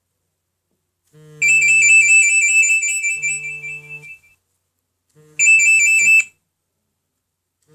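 Nokia N97 Mini ringtone: a high, warbling electronic trill. It starts about a second in and fades out by about four seconds, then plays again briefly near five and a half seconds. Under it the phone's vibration motor buzzes in short pulses.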